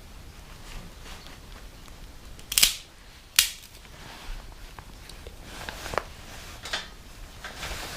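Small fire of disposable wooden chopsticks crackling, with sharp irregular pops: two loud snaps about two and a half and three and a half seconds in, and smaller ones after.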